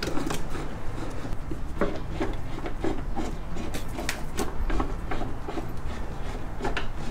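Irregular light clicks, taps and rubbing of wood being handled by hand.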